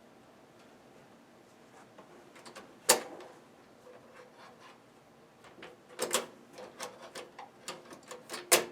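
Sharp mechanical clicks and knocks from handling the equipment: one click about three seconds in, then a run of irregular clicks that grow louder near the end.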